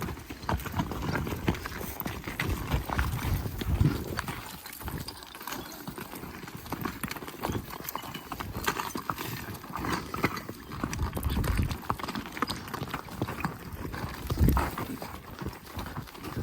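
Hooves of ridden horses clip-clopping over the ground, an irregular run of knocks and low thumps.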